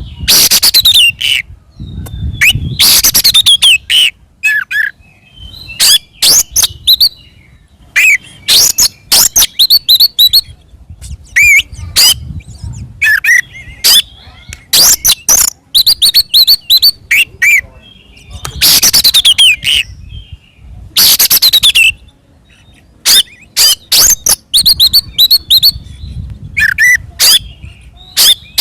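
Oriental magpie-robin (kacer) singing loudly in its aggressive, fighting-mood song: rapid phrases of sharp rasping notes and down-slurred whistles, broken by short pauses.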